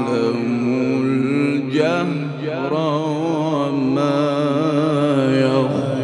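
Male Quran reciter chanting in the melodic maqam style, holding and ornamenting long melismatic notes with a wavering pitch, with a short break about two seconds in.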